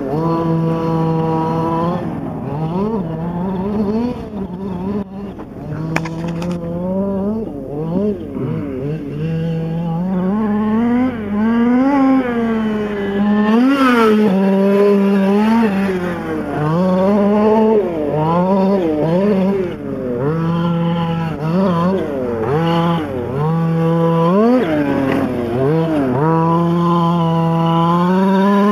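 Losi 5ive T's two-stroke gas engine on its break-in run, repeatedly revving up and dropping back as the truck is driven. Between bursts of throttle it settles to a steady idle, which the owner finds a little high and in need of low-end adjustment.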